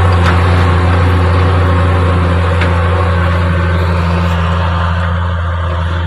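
Case IH Puma 140 tractor engine running steadily under load while pulling a disc harrow, with a deep, even hum that slowly fades a little.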